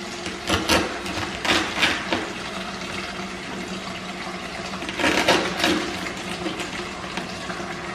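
A lobster tail's shell crunching and cracking as a knife cuts along its back and hands pry it open. There are a few sharp crackles between about half a second and two seconds in, then more around five seconds, over a steady low hum.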